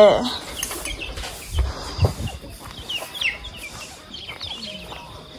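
Young chicks peeping in short, high, downward-sliding chirps. Two low thumps come about a second and a half and two seconds in.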